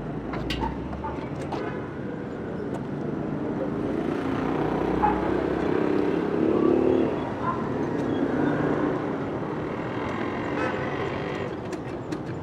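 City street ambience: a motor vehicle passes, swelling to its loudest about six to seven seconds in and then fading, over a murmur of people talking and a few sharp clicks near the start.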